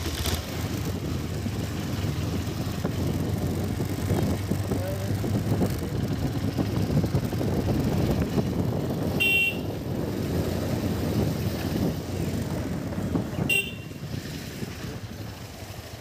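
KTM 390 Adventure's single-cylinder engine running as the bike is ridden, with wind and road noise, dropping lower near the end. There are two short horn toots, about nine and thirteen and a half seconds in.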